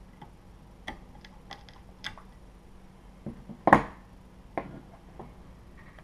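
Light clicks and knocks of small hard parts and hand tools being handled during printer assembly. There are about seven irregular taps, the loudest about three and a half seconds in.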